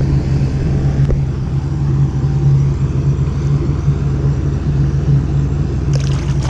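A boat motor running steadily with an even low hum, with a few light clatters near the end.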